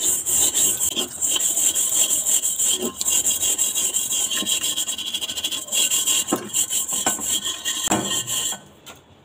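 A small copper ghoti (water pot) being scoured by hand with a gritty salt-and-flour paste: rapid, scratchy back-and-forth rubbing strokes that take tarnish off the metal. The scrubbing stops abruptly near the end.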